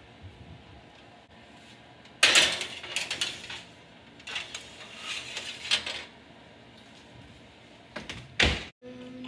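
A metal baking sheet is slid onto a wire oven rack, scraping and rattling in two spells, the first the loudest. Near the end the oven door is swung shut with a knock.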